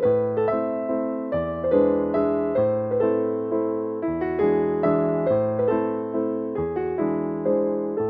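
Background piano music: a gentle melody of quick single notes over bass notes that change every second or two.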